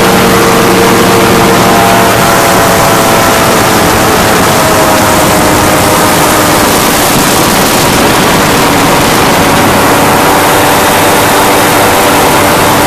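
Powered parachute's engine and propeller running steadily in flight, heard loud from on board with a constant rush of wind noise; the engine pitch shifts slightly about two seconds in.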